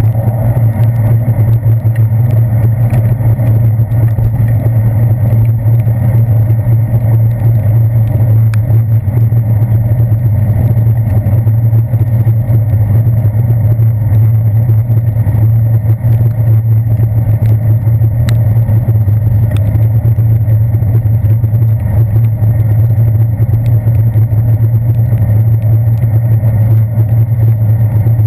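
Steady low rumble of wind and road vibration picked up through a handlebar-mounted GoPro Hero 2's sealed waterproof housing while cycling on wet pavement, with a few faint ticks.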